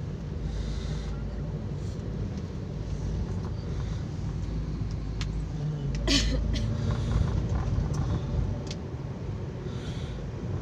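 Steady low rumble of a moving car's engine and tyres heard from inside the cabin, with a sharp click about six seconds in.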